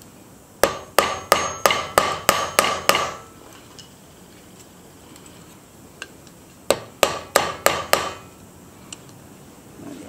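Small hammer peening the rivet pins of a Victorinox 111 mm pocket knife on an anvil block: a run of about eight light metallic taps, about three a second, then after a pause a second run of about six.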